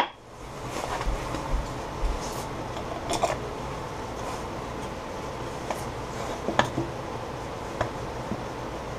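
A few light clicks and knocks of wooden pieces being handled and fitted against a stopped lathe's headstock, over a steady machine hum.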